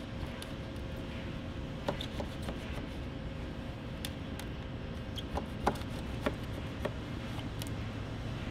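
A hand pry tool clicking and scraping in short, scattered taps against the bottom seam of a car door panel as it is worked loose during disassembly for collision repair. A steady shop hum with a faint constant tone sits underneath.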